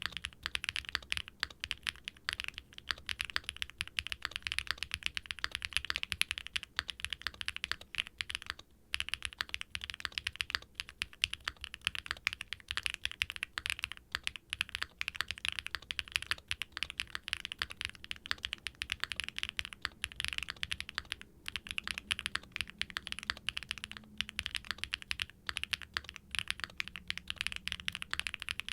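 Continuous fast typing on a Qwertykeys QK65 V2 Classic aluminum mechanical keyboard with Keygeek Y3X linear switches and GMK Nord ABS keycaps, a steady stream of keystrokes with brief pauses now and then. The board is built for a deep, creamy, thocky sound: gasket-mounted aluminum plate with case and plate foam, and factory-lubed switches.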